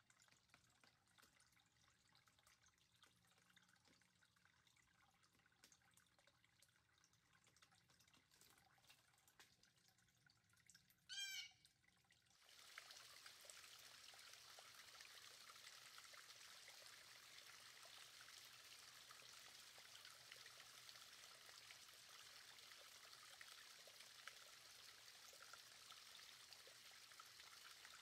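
Faint near silence broken by one short, loud bird call; then, a little before the middle, the faint steady trickle of water running over the rocks of a small backyard water feature starts and carries on.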